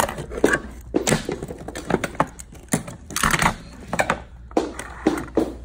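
Wooden toy train set pieces (Brio track, wagons and a toy crane) clacking and knocking together and against the tabletop as a toddler handles them. The knocks are irregular, about two or three a second.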